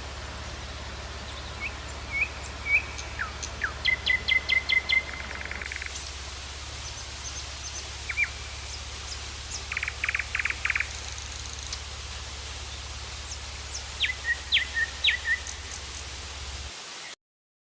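Birds chirping, with short calls and quick trills repeated at intervals over a steady background hiss and low hum; everything cuts off abruptly near the end.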